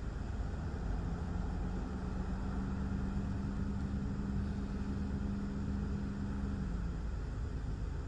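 Thunderstorm outflow wind blowing steadily: an even rushing noise with a low rumble. A steady low hum comes in about a second in and fades out near the end.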